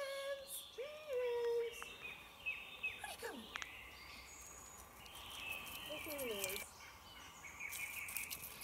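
Woodland birds singing, with short chirps and trills throughout. A person's voice calls out a few times, the loudest call about a second in.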